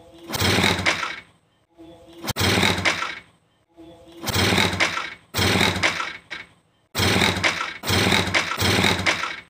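Old two-stroke underbone motorcycle kickstarted over and over, the engine turning over in about seven short rattling bursts with pauses between kicks. It is a long-unused engine being coaxed to start.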